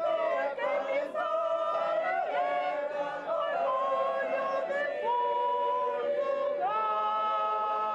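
Mixed choir of men's and women's voices singing, moving through sustained notes and settling into a long held chord near the end.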